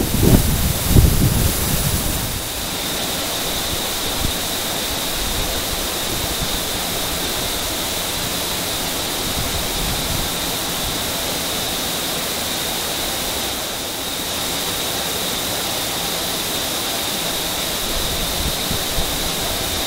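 Steady rushing noise with a thin, steady high whine over it, and a few low thumps in the first two seconds.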